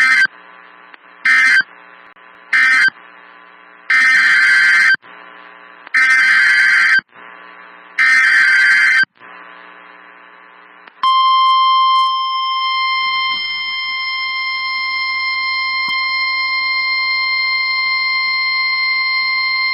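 NOAA Weather Radio Emergency Alert System signalling. First come three short screeching digital data bursts, the end-of-message code, then three longer one-second SAME header data bursts about two seconds apart. After that the steady 1050 Hz weather-radio warning alarm tone begins and holds for about nine seconds, announcing a new warning.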